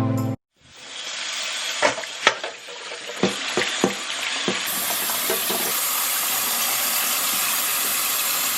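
Food sizzling in a frying pan, with a few sharp clinks of a utensil against the pan in the first half, then an even sizzle.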